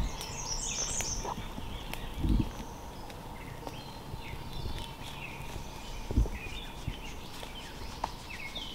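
Small birds chirping in short repeated calls, with two dull low thumps about two and six seconds in.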